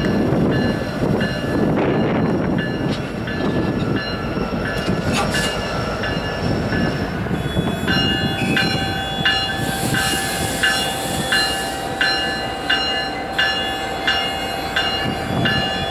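Diesel freight locomotives rumbling, with a bell ringing about three times every two seconds. The ringing is faint at first and clearly louder in the second half, where a steady higher whine runs alongside it.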